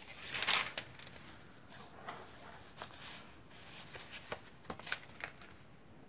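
Paper pages of a handmade journal being handled and turned: a swish of paper about half a second in, then a few soft rustles and light taps.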